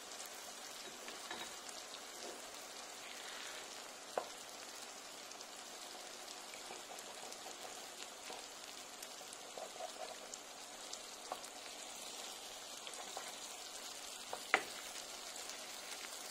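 Tomato sauce with shrimp and eggs sizzling in a frying pan: a steady hiss, with a few sharp clicks of a utensil against the pan about four seconds in and again near the end.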